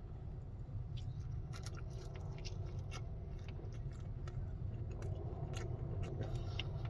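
Close-up chewing of a chicken tender: a run of short, crisp crunches and mouth clicks starting about a second in, over a steady low hum.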